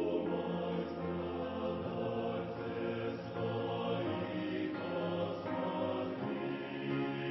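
A choir singing a hymn in slow, held chords that change every second or two; a low bass note drops out about two seconds in.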